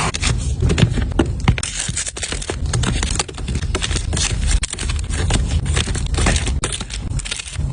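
Items and packaging being handled and set down while a small rolling cart is stocked: a dense run of quick clicks, taps, scrapes and crinkles over a steady low rumble.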